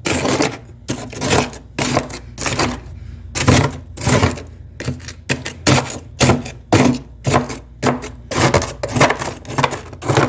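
Freezer frost crunching in a quick, uneven series of crisp crunches, about three a second.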